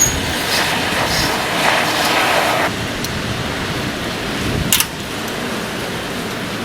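Strong gusting wind rushing over the microphone. It is louder for the first two and a half seconds or so, then eases, with one sharp click a little before five seconds in.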